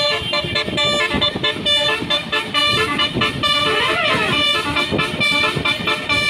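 A bus's basuri musical horn (telolet) playing a fast tune of short horn notes, with a sweeping tone that slides up and down about four seconds in.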